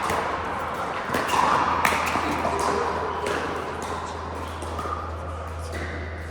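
Pickleball paddles striking the plastic ball: several sharp pops at uneven intervals, over a steady low hum.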